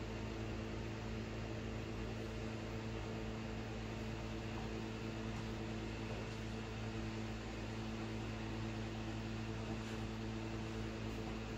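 Steady low hum with an even hiss: room background noise.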